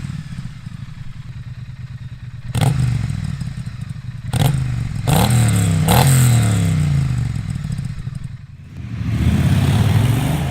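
Triumph Street Twin's parallel-twin engine idling, then revved in a series of quick throttle blips from about two and a half seconds in, each rising and falling in pitch, and one longer rev near the end. The exhaust runs through the stock silencers with a Freespirit X-pipe fitted in place of the catalytic converter (de-catted).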